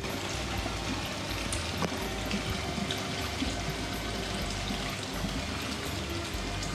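Water running steadily in an indoor koi fishing pond, a constant trickling and pouring without breaks.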